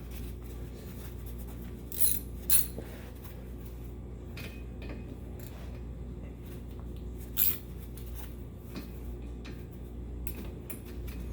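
A few sharp metallic clinks of hand tools on metal, about two seconds in, again half a second later and once more past the middle, over a steady low hum.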